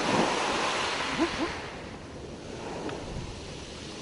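Sea water washing and wind on the microphone at sea. A louder rush of water in the first two seconds eases to a steady, quieter wash.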